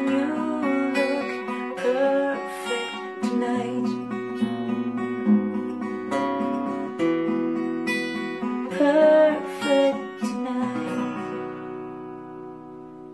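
Acoustic guitar strummed through the closing chords of a song, with a last chord left to ring and fade away over the final few seconds.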